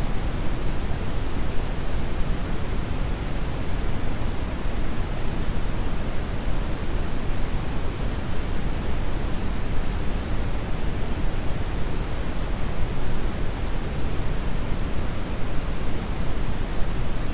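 Brown noise: a steady, deep rushing hiss, strongest in the low end and fading toward the highs, without change.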